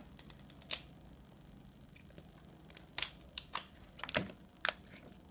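Plastic wrapping of a toy surprise ball being pulled and worked open, giving scattered sharp crackles and clicks. A few come in the first second and a denser run comes from about three seconds in.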